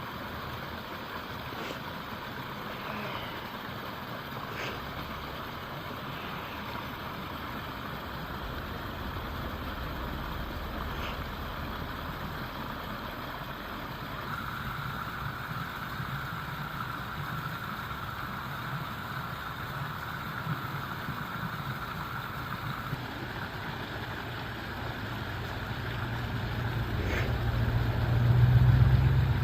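A motor vehicle's engine and road noise running steadily. A low rumble grows louder over the last few seconds and peaks near the end.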